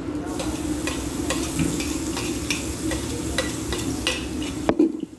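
Metal spoon clinking and scraping on a ceramic plate as minced garlic is pushed off it into a hot frying pan, with oil sizzling underneath. The sizzle and clinks cut off suddenly near the end.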